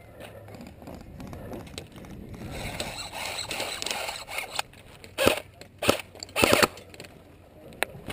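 Clothing and gear rustling with shuffling movement, then sharp cracks about five and six seconds in and a short rapid string of them soon after, typical of airsoft guns firing.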